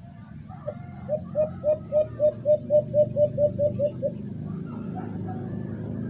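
Portable Bluetooth speaker playing a recorded alimukon (dove) call as a hunting lure. About a second in comes a quick run of about thirteen short, low, hooting notes, roughly four a second, which stops about four seconds in.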